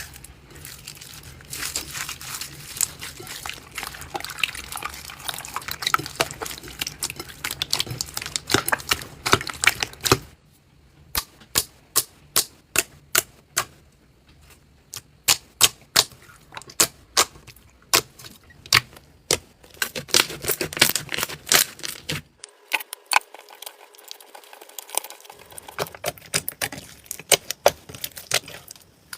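Slime being pressed, poked and stretched by hand, making crackly clicking and popping. There is a dense crackle at first. About a third of the way in it turns to separate sharp pops, two or three a second, and later goes back to crackling.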